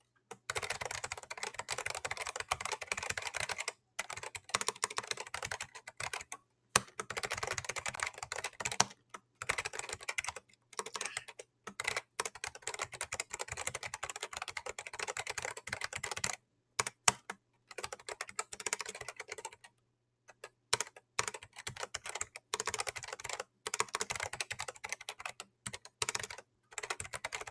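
Typing on the Riskeyboard 70, a 3D-printed hall-effect keyboard with its newest switches and keycaps, close-miked: quick runs of key clicks broken by a few short pauses.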